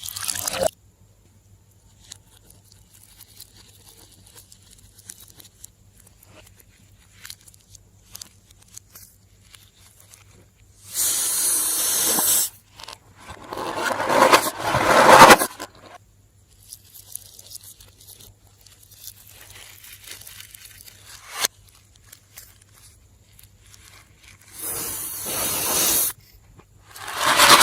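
Slime being made and handled: quiet scraping and squishing, broken by several short, loud bursts of crackly, hissing noise lasting a second or two each.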